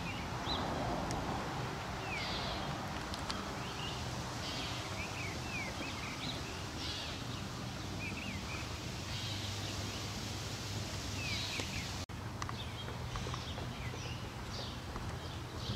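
Outdoor ambience of songbirds chirping, in many short quick chirps, over a steady low hum. The sound drops out for an instant about twelve seconds in.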